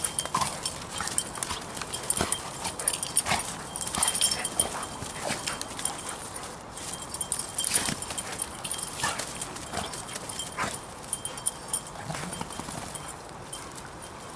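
Two dogs, one a golden retriever, rough-playing on dry leaf litter: paws and bodies scuffling and rustling through the leaves in quick irregular bursts, with short dog vocalisations. The scuffling eases off near the end.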